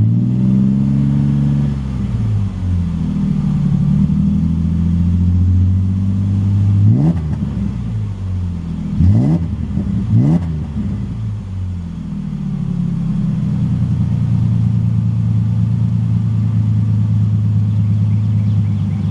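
2004 Ford Ranger Edge's V6 engine revving through a Magnaflow exhaust. It drops back from a rev at the start, gets a quick rev about seven seconds in and two sharp throttle blips a second apart soon after, then settles into a steady, deep idle.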